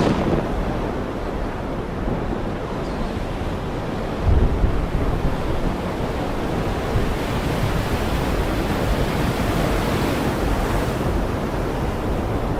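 Heavy rain falling steadily, a dense even hiss, with a brief low rumble about four seconds in.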